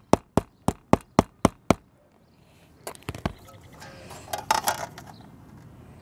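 Claw hammer tapping on asphalt roof shingles to sound out a rafter, seven quick light strikes at about four a second that stop just under two seconds in. Then a few light clicks and handling noise as the metal flashing plate is moved into place on the shingles.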